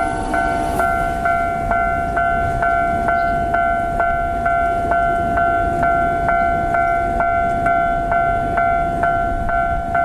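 Japanese level crossing's warning bell ringing, a repeated two-pitch clang at a bit over two strikes a second. It signals that a train is coming and the crossing is closed.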